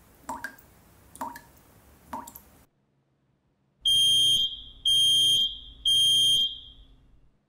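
Three faint water drips about a second apart, then a smoke alarm sounding three loud, high-pitched beeps about a second apart, the three-beep pattern of a smoke alarm's evacuation signal.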